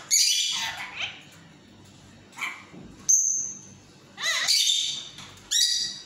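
A lutino Indian ring-necked parakeet calling and chattering in a run of short, high-pitched bursts, with one brief clear whistle about three seconds in.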